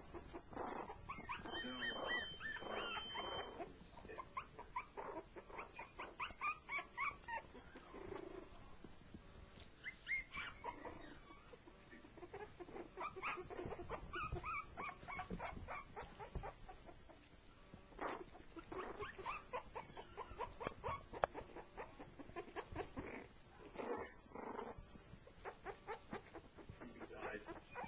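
Three-week-old shorty Jack Russell Terrier puppies whimpering and yipping in clusters of short, high calls while they play-fight.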